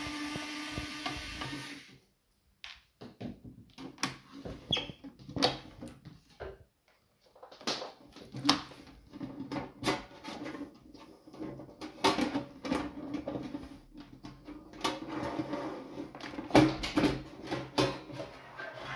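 Small electric screwdriver whirring steadily as it backs out a case screw, stopping after about two seconds. Then a long run of irregular clicks, knocks and scrapes as the sheet-metal top cover of the cassette deck is handled and lifted off.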